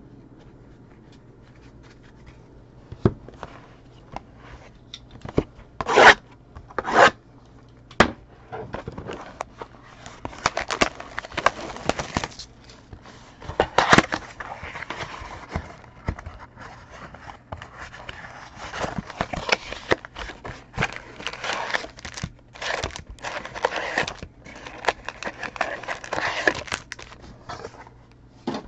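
Sports card packs being torn open and handled: two sharp rips about six and seven seconds in, then a long stretch of wrapper crinkling and card rustling with small clicks and scrapes.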